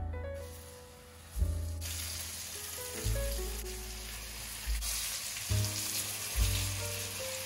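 Flour-dusted chicken breasts sizzling in hot oil in a frying pan as they are laid in; the sizzle starts about two seconds in and holds steady. Gentle piano music plays throughout.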